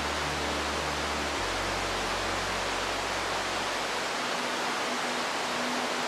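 Steady, even rush of falling and rushing water from a waterfall and river rapids. A low music drone shifts about a second and a half in and fades out by about four seconds.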